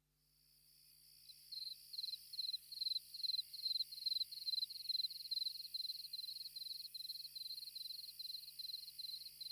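A cricket chirping steadily, about three short high chirps a second, starting after a second of silence.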